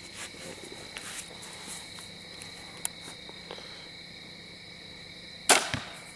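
Crickets chirping steadily, then about five seconds in a crossbow fires once with a loud, sharp crack that sounds like a shotgun.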